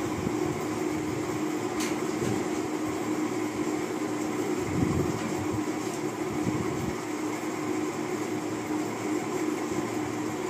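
Steady machine drone with a constant low tone, and a single faint click about two seconds in.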